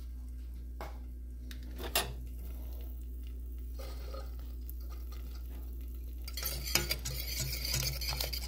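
Wire whisk stirring Parmesan into a thick cheese sauce in a metal pot: a couple of sharp knocks early, then rapid clicking and scraping against the pot from about six seconds in. A steady low hum runs underneath.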